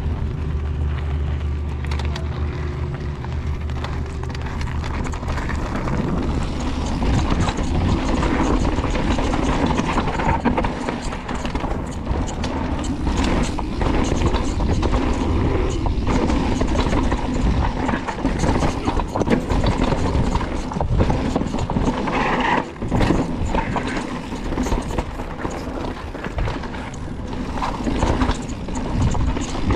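Mountain bike riding a rough dirt trail: a steady rush of tyre noise with constant rattling and knocking from the bike. A low steady hum sits underneath for the first few seconds.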